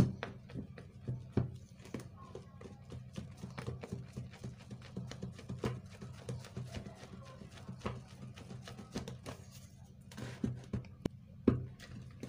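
Wooden spoon stirring thick, foamy liquid soap in a plastic bowl, with quick, irregular knocks and scrapes against the bowl's sides.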